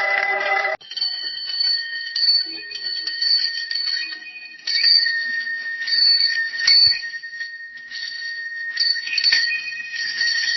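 Bicycle bell struck again and again at an uneven pace, about once or twice a second, its two clear tones ringing on between strikes. A different, fuller-toned bicycle bell rings briefly at the start before an abrupt cut.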